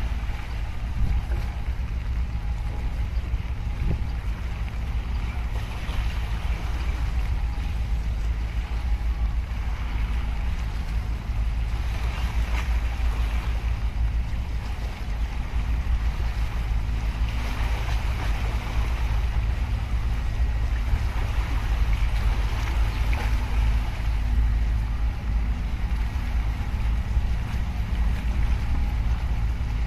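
Steady low engine drone of a large container ship moving past close by, under a heavy rumble of wind on the microphone, with faint water splashing against the breakwater.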